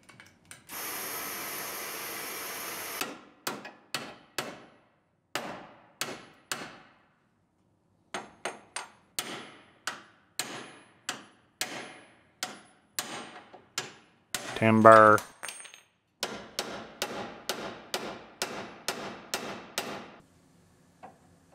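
Hammer blows on the damaged steel front frame rail end of a 2018 Ford Explorer, one sharp strike after another at about two to three a second, with a pause partway through. A steady hiss lasts about two seconds near the start.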